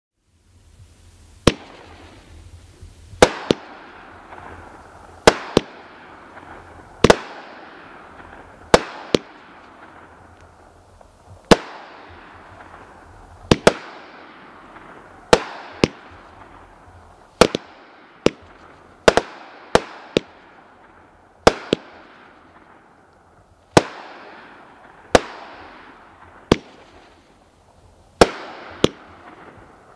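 Cutting Edge Fireworks 'Rock Your World' consumer cake firing shot after shot: a sharp bang about every one to two seconds, sometimes two close together, each trailing off into a fading hiss.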